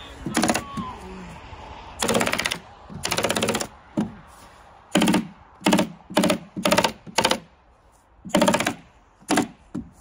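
Handheld power stapler driving staples into roof sheathing, fired in quick rapid-fire runs of about half a second and in single sharp shots, about eleven in all.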